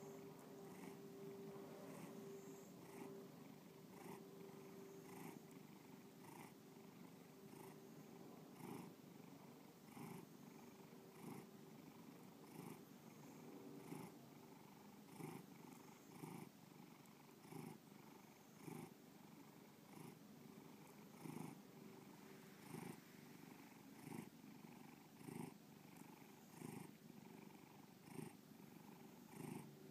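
Domestic cat purring softly and steadily, the purr swelling and easing with each breath, about once every second and a half.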